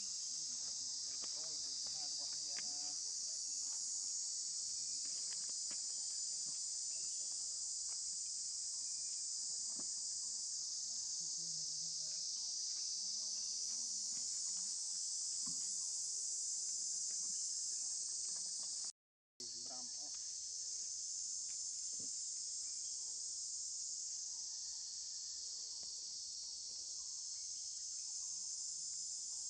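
Steady, high-pitched shrill of an insect chorus that breaks off for about half a second roughly two-thirds of the way through.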